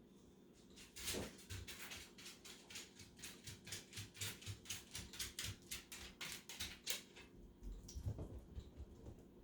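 A fast series of light clicks or taps, about four a second, lasting roughly six seconds, with a short falling swish at the start and another near the end.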